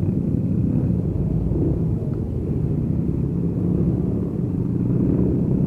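Motorcycle running at riding speed, picked up by a camera mounted on the bike or rider: a steady low engine and road rumble with no sudden sounds.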